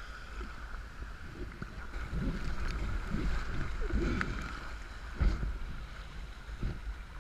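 Wind buffeting the microphone over water sloshing around a sea kayak as it is paddled through choppy sea, with a sharp thump about five seconds in.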